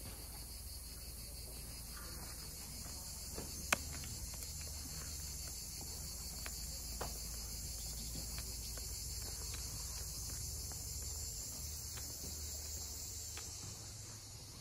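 A steady, high-pitched chorus of insects buzzing in the trees, fading near the end. A few sharp clicks cut through it, the loudest about four seconds in.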